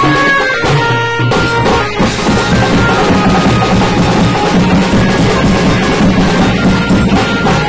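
Loud wedding band music: a melody line at first, then the drums come in about two seconds in and keep a dense, steady beat.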